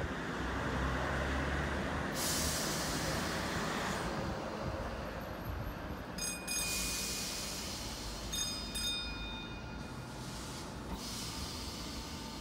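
Northern class 319 electric multiple unit standing at the platform, its equipment giving a steady low hum. There are stretches of air hiss, and short high beeps come twice around the middle.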